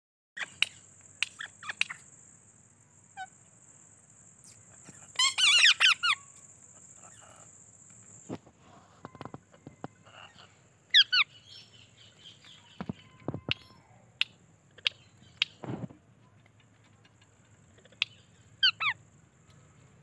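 Alexandrine parakeets giving short, sharp squawking calls. The loudest is a burst about five seconds in, with shorter calls near eleven and nineteen seconds and scattered small clicks between them. A faint steady high tone sits underneath during the first half.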